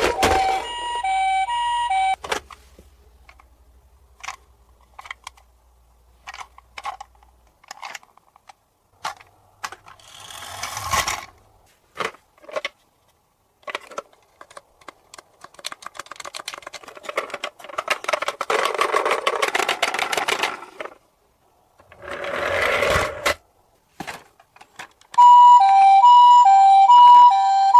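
Electronic toy ambulance siren playing an alternating two-tone hee-haw, which stops about 2 s in and starts again near the end. In between, scattered clicks and clatter, with a few longer noisy stretches.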